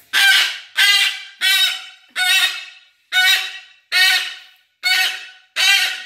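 Umbrella cockatoo screaming over and over, about eight loud, harsh calls in six seconds, each one fading off. This is a tantrum: the bird is upset.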